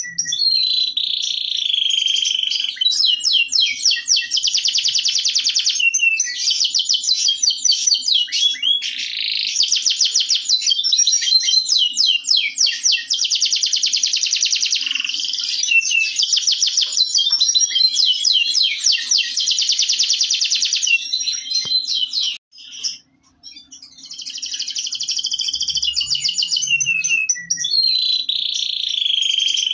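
Local domestic canary (kenari lokal) singing a long, loud song of fast rolling trills and rapid repeated notes, with a short pause about three quarters of the way through.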